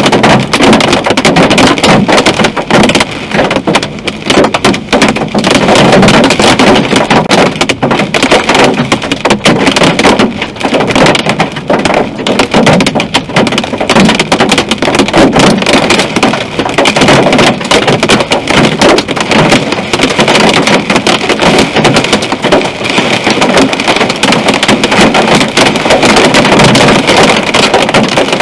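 Hail and heavy rain beating on a car's roof and windshield in a loud, dense, unbroken clatter of impacts.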